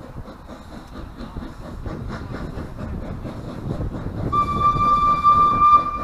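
Hunslet Austerity 0-6-0 saddle tank steam locomotive working up a gradient, its exhaust a low rumble. About four seconds in, its whistle sounds a long single steady note.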